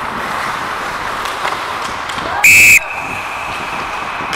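An ice hockey referee's whistle gives one short, loud, high-pitched blast a little past halfway through, and a faint tone at the same pitch lingers after it. Steady rink noise runs underneath.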